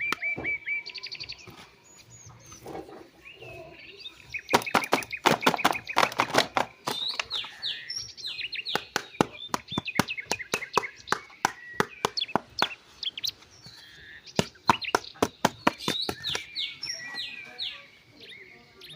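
Birds chirping and singing, with quick repeated chirps and fast clicking trills, one dense run of rapid notes about five seconds in.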